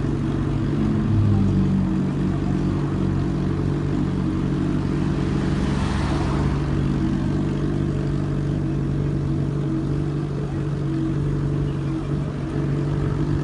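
A vehicle engine running at a steady speed, with a brief swell of rushing noise about six seconds in.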